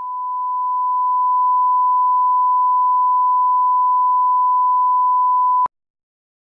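Television colour-bar test tone: one steady beep that swells over the first second or so and cuts off suddenly with a click near the end.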